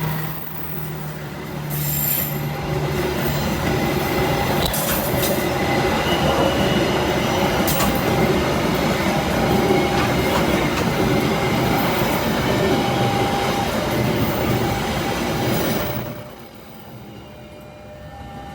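A train running past on the line, a loud steady rumble of wheels on rail with a few short squeals from the wheels. The noise drops away sharply about sixteen seconds in.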